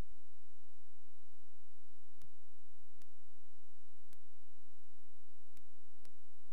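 A steady electronic tone, with a few fainter steady overtones and a low hum beneath it, broken by a few faint clicks.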